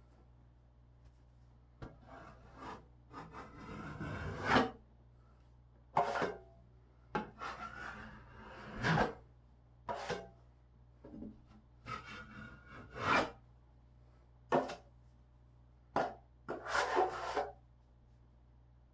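A series of scraping strokes against a drywall patch, some brief and some a second or more long, with short pauses between them.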